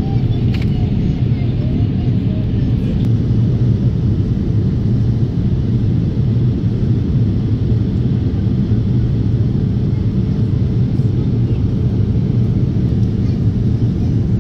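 Steady low drone of a jet airliner's engines and rushing airflow, heard from inside the passenger cabin during the descent to land.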